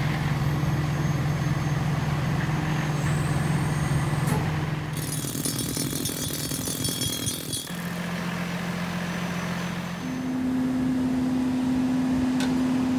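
Heavy utility truck engine running steadily, a low hum that jumps to a different pitch about eight seconds in and again about ten seconds in, with a brief high hiss partway through.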